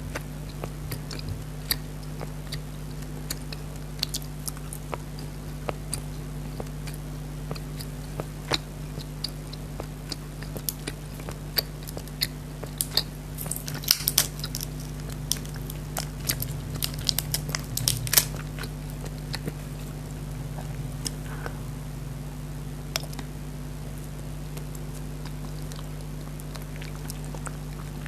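Biting and chewing alphabet jelly, with many short scattered clicks that come thickest around the middle, over a steady low hum.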